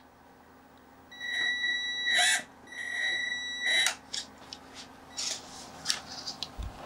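A 1:18-scale RC crawler's small electric motor and drivetrain working at low throttle. Twice a steady, high-pitched whine lasts about a second, and short, louder bursts of gear and tyre noise come as the truck creeps over a wooden stick ramp.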